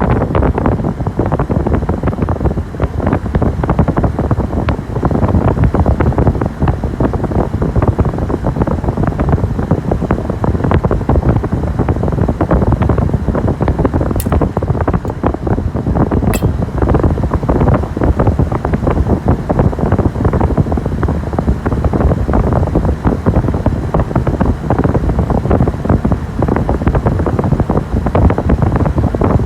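Steady loud rushing hum from a TBB-2g bar fridge's compressor area. Two sharp clicks, about two seconds apart near the middle, fit the compressor overload switch cycling on and off, the sign of a compressor that fails to start and so won't cool.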